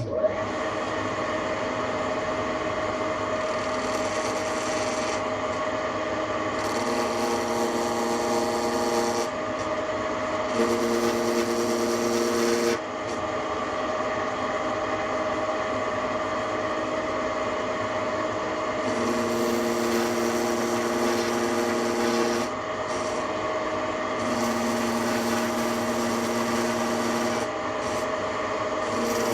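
TV-16 bench lathe running steadily with a constant whine, while the cutter works the part: a scraping cut, with a lower humming tone that comes and goes four times for a few seconds each.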